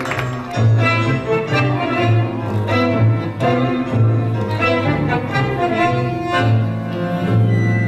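Argentine tango music played by a live orchestra, strings carrying the melody over a pulsing bass line.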